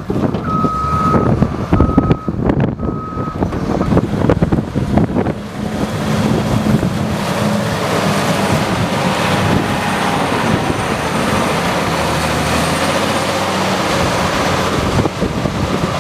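Heavy snow-clearing vehicle giving three reversing beeps about a second apart near the start, then its engine running loud and steady under load.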